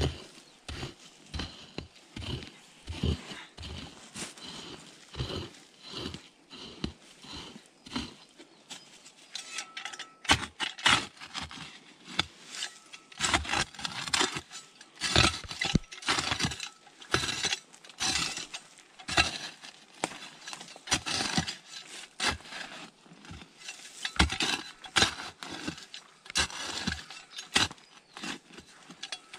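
Irregular scrapes and knocks of digging and clearing stony soil by hand, busier from about ten seconds in.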